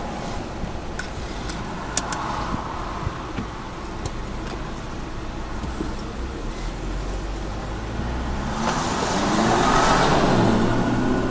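Vehicle engine and road noise heard inside the cabin, with a few light clicks about two seconds in. Near the end the engine revs up, rising in pitch and getting louder as the vehicle accelerates.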